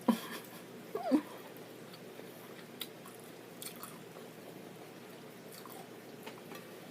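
Biting into and chewing Mexican corn on the cob (elote), close to the microphone: a sharp bite at the start and another sound about a second in, then faint chewing.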